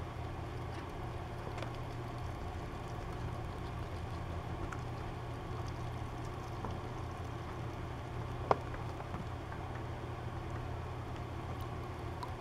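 A steady low hum and hiss, with faint scattered clicks and small splashes as pet rats wade in a shallow tray of water and fish out peas. One sharp click about eight and a half seconds in.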